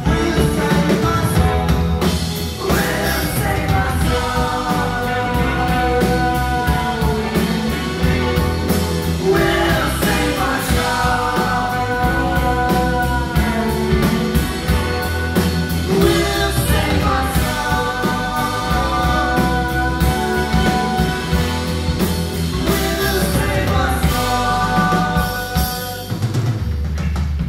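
Live rock band playing, with sung vocals over drum kit, bass and guitars.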